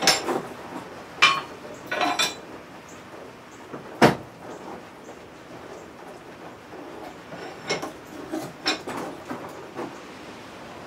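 Blacksmith's steel tongs and hand tools clanking and clinking as they are handled and knocked together, with a sharp clank about four seconds in and lighter clinks near the end.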